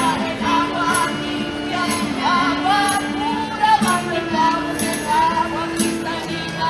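Live acoustic music: a strummed acoustic guitar with held low notes under a high, wavering melody line, and a jingle shaken about once a second like a tambourine.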